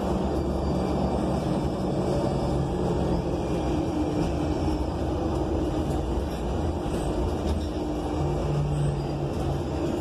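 Cummins Westport L9N natural-gas engine and Voith automatic transmission of an ENC Axess transit bus, heard from inside the passenger cabin as a steady low drone. The engine note changes about eight seconds in.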